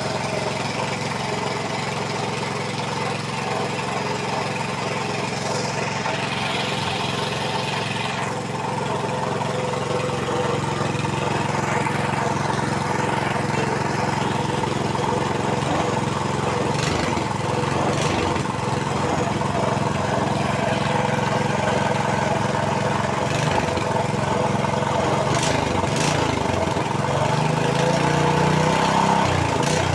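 Suction-pump engine running steadily at idle, smooth-running after being finished. Near the end its pitch wavers up and down a little.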